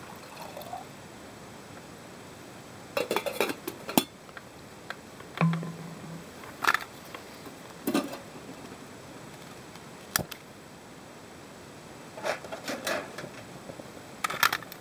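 Scattered clinks and knocks of metal camp cookware being handled around a soda-can alcohol stove and its aluminium windscreen, ending with the lidded pot set down on the stove stand.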